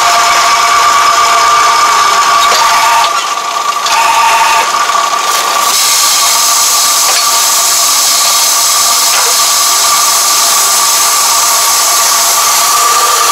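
Yanmar tractor engine and its hydraulics running steadily with a constant whine, powering a tractor-mounted round bale wrapper. From about six seconds in, a stronger hiss joins as the wrapper turns the rice-straw bale and stretches silage film onto it.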